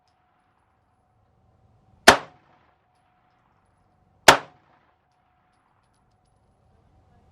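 Two shots from a PSA Dagger 9mm pistol, about two seconds apart, each a sharp crack with a short ring-off, over a faint steady tone.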